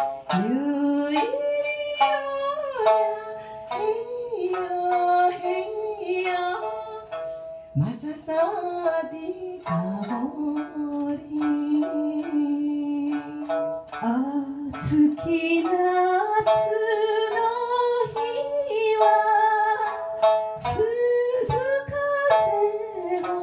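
Live music: a woman singing a melody over a plucked string accompaniment. Long sung notes with vibrato, some sliding up into pitch.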